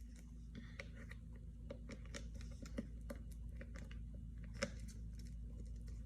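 Packaging of a boxed product being handled: irregular small clicks and taps of box and plastic, with a louder click about three seconds in and another just before five seconds in, over a steady low hum.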